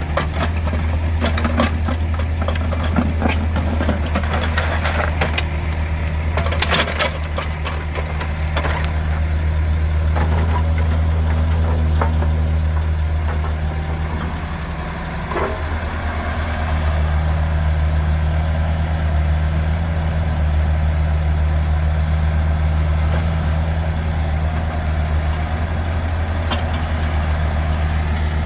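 Kubota U45 mini excavator's diesel engine running steadily, with scattered knocks and clanks over the first several seconds. The engine note dips briefly about halfway through, then comes back up.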